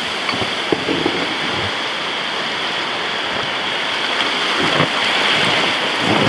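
River rapids rushing: a steady whitewater hiss, with a few low knocks about a second in, near five seconds, and near the end.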